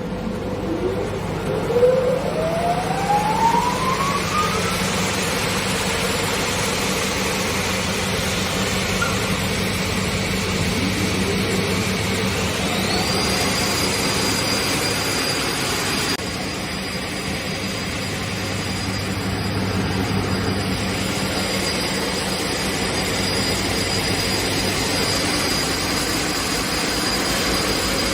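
Woodworking planer-sander machine running with a steady hum; a motor whine rises in pitch over the first few seconds, and about twelve seconds in a second, higher whine climbs and then holds steady as another motor comes up to speed.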